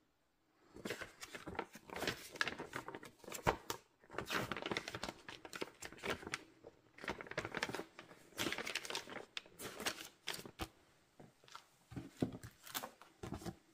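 Paper rustling and crinkling as a folded instruction manual is handled and its pages opened out, in irregular bursts with short pauses.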